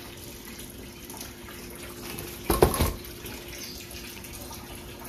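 A steady background hiss with a faint hum. About two and a half seconds in comes a short burst of rustling and knocking as the long cardboard torque-wrench box is handled and turned over on a plastic mailer bag.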